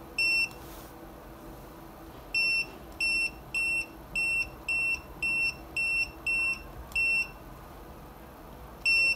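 Short, high-pitched key-press beeps from a MUSTOOL MT8206 graphical multimeter as its buttons are pressed: one, then a quick run of nine about half a second apart, then one more near the end.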